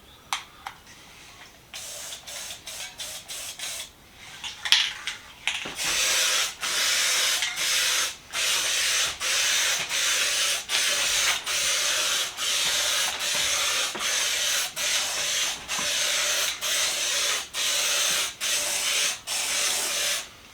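Paint sprayer hissing in repeated short bursts. It starts with weak, short spurts, then about six seconds in settles into stronger bursts, about one and a half a second, with brief gaps between them.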